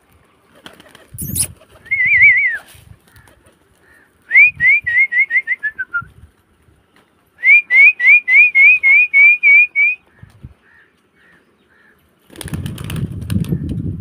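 Whistling in short rising notes: a brief warble about two seconds in, then two quick runs of about eight and ten notes, the first sliding down at its end. Near the end, a short burst of pigeon wings flapping.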